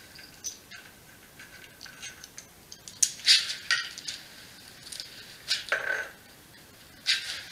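Small metal bike parts clinking and rattling as the handlebar stem's faceplate and bolts are taken off and the handlebar is lifted to the stem: a few sharp clinks, the loudest clatter about three seconds in and more near the end.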